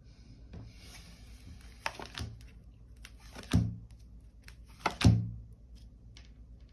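Rustling handling sounds, then three dull thuds on a tabletop, about two, three and a half and five seconds in, the last two the loudest. The thuds are typical of a tarot deck or cards being handled and set down.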